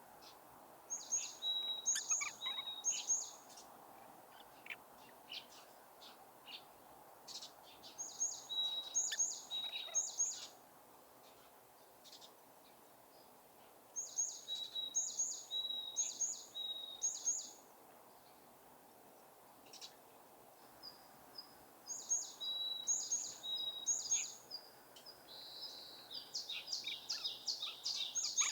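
A small tit singing its song in repeated bursts: each phrase is a string of two-note calls, a high note then a lower one, given about three times over. Five phrases come several seconds apart, and the last, near the end, is faster and denser.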